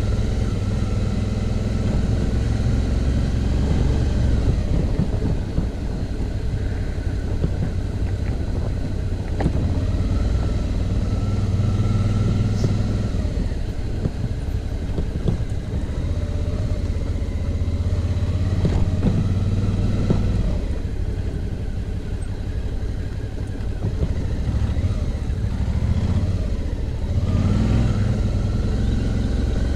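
Suzuki V-Strom motorcycle's V-twin engine running at low speed on a rough dirt road. The engine note drops and climbs back several times as the rider eases off and opens the throttle between bumps, over a low rumble with scattered knocks from the uneven surface.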